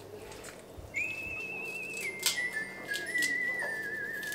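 Whistling a tune: a single clear note starting about a second in, then stepping down through a few lower held notes with a wavering vibrato. A few sharp clicks of kitchen utensils sound over it, the sharpest about two seconds in.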